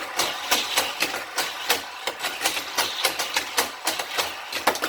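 Hot Wheels Corkscrew Crash track set with its motorized boosters running, and toy cars clattering through the plastic track in a quick, irregular series of sharp clicks and knocks.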